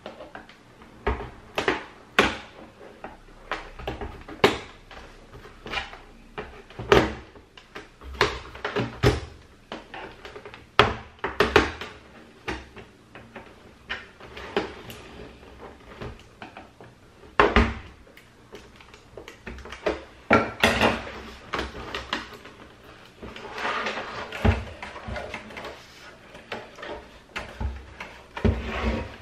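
Plastic case of a Philips 243V5LHAB LCD monitor being pried and handled by hand to free its hidden clips: irregular plastic clicks and knocks about every second, with a stretch of scraping about two-thirds of the way through.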